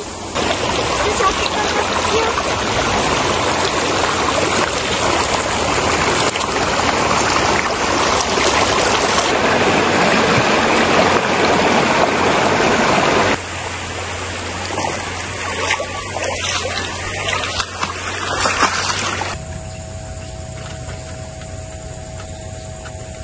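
Shallow river water rushing over a line of rocks, a loud, steady rush. It drops sharply about 13 seconds in and stops about 19 seconds in, leaving a faint steady hum.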